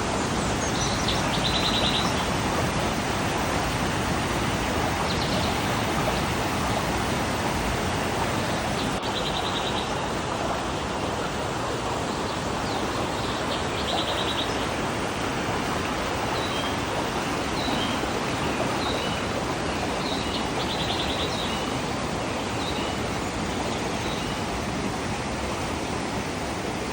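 River water flowing steadily, with short high bird chirps and quick trills now and then over it.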